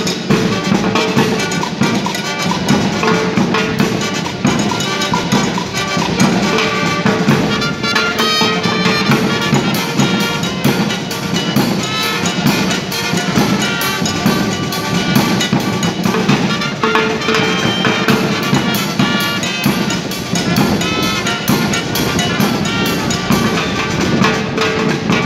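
Brass band playing a huayno: saxophones and trumpets carry the melody over bass drum, snare drum and timbales keeping a steady beat.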